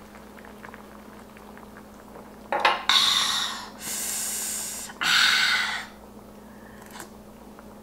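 A woman exhaling hard three times in a row, long breathy 'haaa' breaths after a shot of soju, with a short catch of breath just before them about two and a half seconds in.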